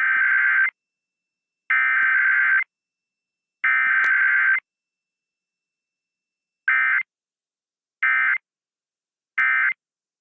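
Emergency Alert System SAME data bursts: three long, harsh two-tone digital screeches about a second apart (the coded header), then after a short pause three brief bursts (the end-of-message code). This is an EAS test sent with no attention tone or spoken message between header and end code, as in a required weekly test.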